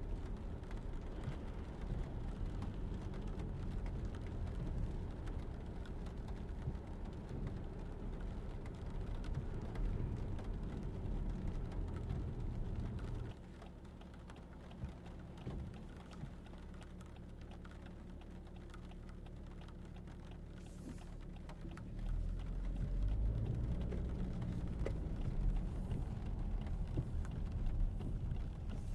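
Inside the cabin of a 2022 Lexus ES300h hybrid driving on wet roads: a low tyre and road rumble with rain ticking on the car. About halfway through the rumble drops away for several seconds, then rises again.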